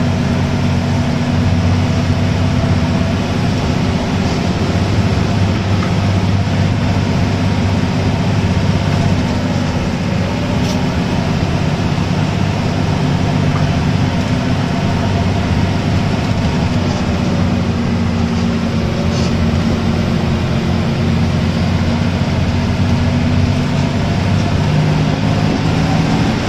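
Bus engine running steadily under way, heard from inside the cabin over road noise. Its pitch rises and falls a little with speed, then drops near the end.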